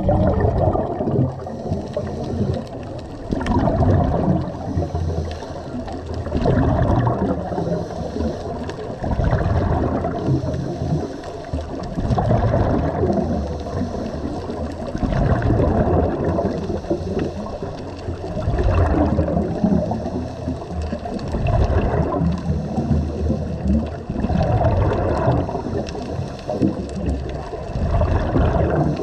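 Scuba regulator breathing heard underwater: rough, bubbling exhalation surges about every three seconds, with quieter inhalations between them.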